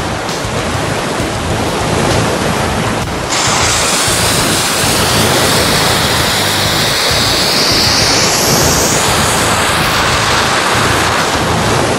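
Loud rushing, churning water, with a hiss that rises in pitch through the middle.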